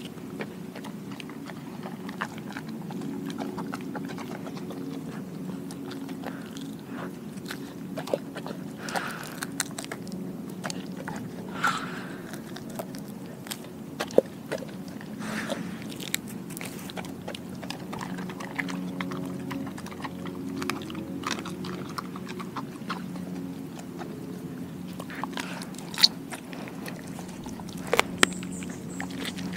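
Doberman biting and chewing a whole raw Cornish hen, with irregular wet crunches as it works through the carcass and a few sharper, louder crunches about halfway and near the end, over a steady low hum.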